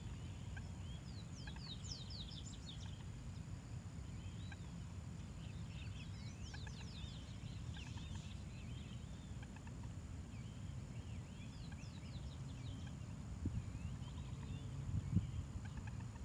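Birds calling in clusters of quick, high, falling chirps over a steady low rumble, with two soft thumps near the end.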